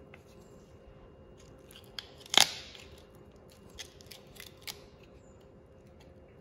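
Boning knife cutting at the knee joint of a deer hind leg: a few sharp snips and crunches as the blade works through tough tendon and cartilage around the knuckle. The loudest crack comes about two and a half seconds in.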